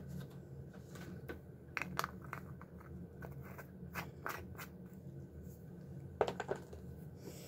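Quiet, scattered scrapes and light clicks of a small jar of microfine glitter being handled and its lid twisted on, with a few more about six seconds in.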